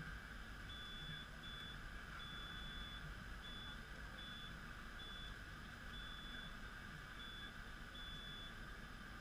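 High electronic beeping, a single pitch sounding in about nine short and longer beeps of uneven length and spacing, over a steady background hum.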